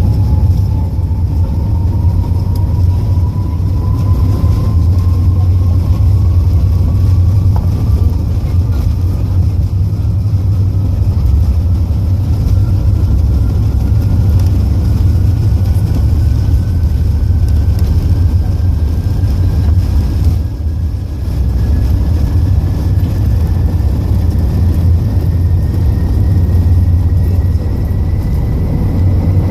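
Airbus A380 jet engines at takeoff power: a loud, steady deep rumble with a thin whine that climbs slowly in pitch.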